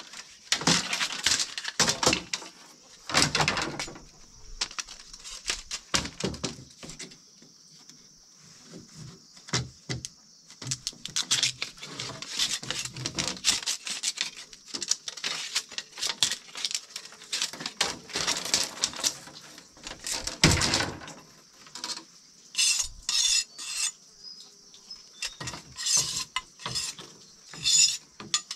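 Irregular clinks and clatters of utensils and dishes being handled, with a steady high-pitched hiss behind them.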